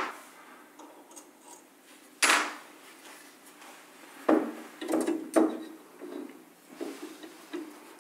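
Knocks and clatter of valve amplifier kit parts being handled and fitted together by hand. There is one sharp knock about two seconds in, then a quick run of knocks and rattles from about four to five and a half seconds, and a couple of lighter taps near the end.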